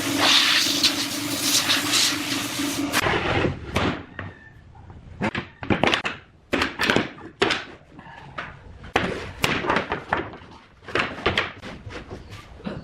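An electric woodworking power tool runs with a hissing whir and a steady hum, then cuts off about three seconds in. A run of sharp, irregularly spaced knocks on wood follows, up to about twenty of them.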